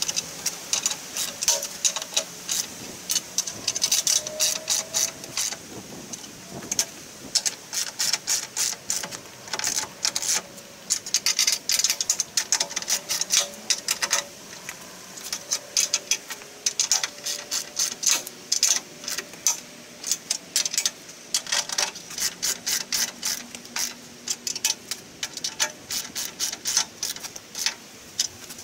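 Socket ratchet wrench clicking in quick runs, again and again, as bolts on an aluminium rack tray are turned.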